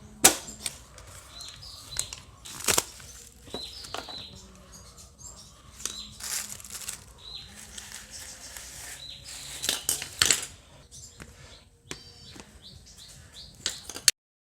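Plastic wrapping and packing material rustling and crinkling as it is handled, with several sharp knocks and clicks. The sound cuts off suddenly near the end.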